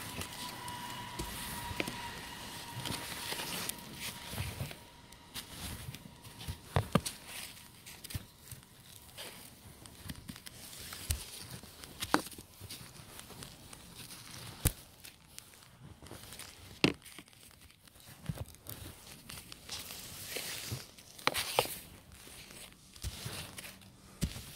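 Snow brush pushing and sweeping heavy, wet snow: irregular crunching and scraping swishes, with sharp clicks and knocks now and then as the brush head strikes.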